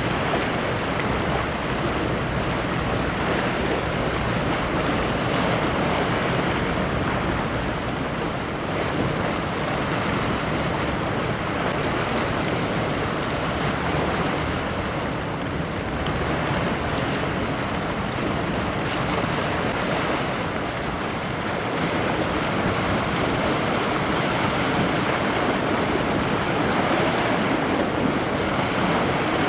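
Steady wind rushing over the microphone, mixed with the wash of waves, easing slightly a few times.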